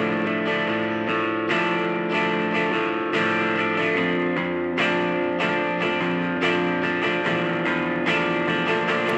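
Music: electric guitar with effects playing sustained, ringing chords, a new chord coming in about every second.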